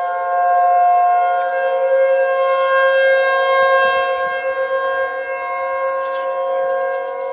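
Outdoor warning siren sounding a steady tone in a scheduled siren test: several notes held together at a constant pitch, its loudness swelling slightly a second or so in.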